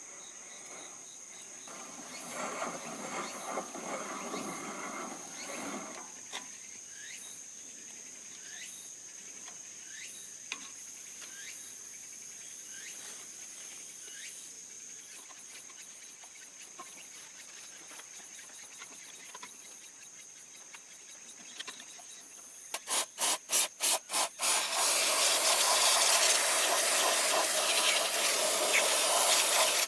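An aerosol spray can, such as parts cleaner or silicone spray, is shaken, its mixing ball rattling in about seven quick strokes, then sprayed in a loud, steady hiss for several seconds. Crickets and insects keep up a steady high trill, and there is some light scraping and rubbing of tools on parts earlier.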